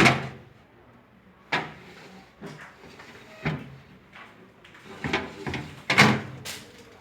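Plastic parts of a refrigerator being handled: a series of knocks and bumps as the drawers and shelves are opened, moved and closed. The loudest knocks come right at the start and about six seconds in.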